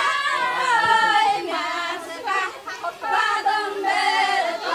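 A group of women singing a folk song together in chorus, without instruments, with a short break in the singing a little past halfway through.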